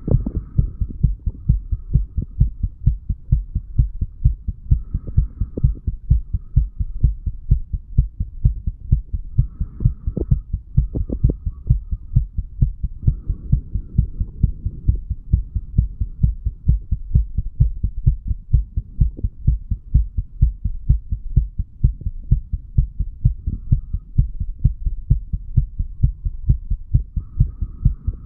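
A man's heartbeat heard through the chest wall: regular, steady low lub-dub thuds that keep an even pace throughout, recorded a few hours after heavy drinking.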